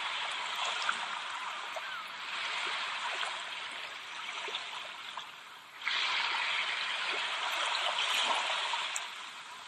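Running water, a steady noisy rush that eases off a little in the middle, then jumps abruptly louder about six seconds in.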